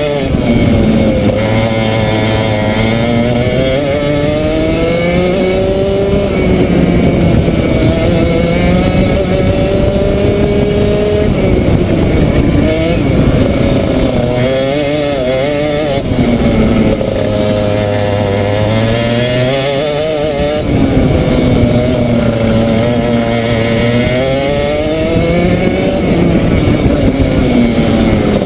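Unrestricted 125cc Rotax two-stroke kart engine heard onboard at racing speed, its pitch climbing as it revs out and falling away into the corners, over and over through the lap.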